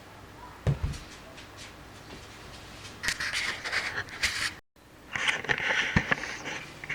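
Handling noise: a couple of low knocks, then two stretches of scraping and rustling, cut off by a brief dropout between them.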